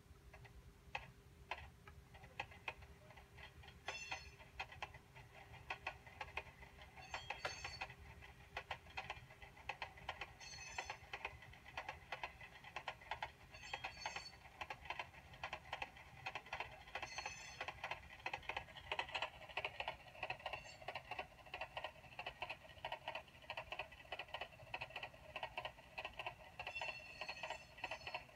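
Clickety-clack of wheels over rail joints, played by a SoundTraxx Tsunami sound decoder in an HO scale Walthers Pennsylvania Railroad 4-4-2 Pullman sleeping car. The clicks come sparsely at first and quicken as the car speeds up.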